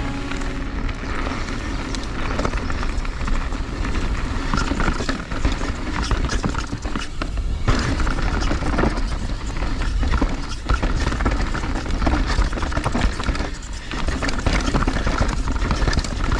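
Transition Spire mountain bike ridden fast down a dirt bike-park trail: steady wind rush on the microphone, tyres rolling on dirt, and frequent knocks and rattles from the bike over bumps and landings.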